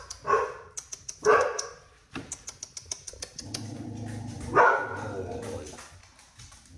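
A dog barks three times: twice about a second apart at the start, then once more about two-thirds of the way through.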